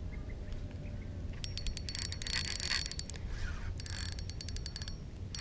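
Spinning reel's drag clicking in rapid runs as line is pulled off under a fish's pull, starting about a second and a half in and coming in several spurts with short pauses. The fish has either run into a snag or is still pulling.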